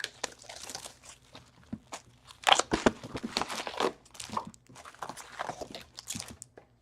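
Plastic wrapping being torn and crinkled as a box of trading card packs is opened: irregular crackles and rips, the loudest about two and a half seconds in.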